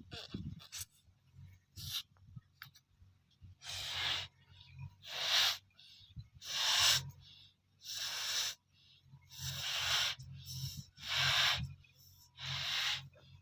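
Repeated short hissing rushes of air, about eight of them, each lasting well under a second and coming roughly every second and a half.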